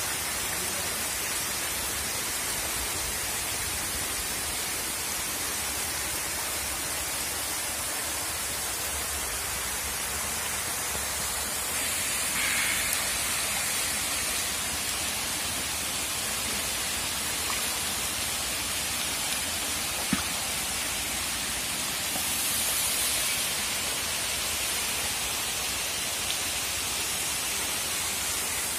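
A dense crowd of hybrid magur catfish thrashing and splashing in shallow water, a steady rain-like splashing hiss that swells briefly twice, with one sharp tick about two-thirds of the way through.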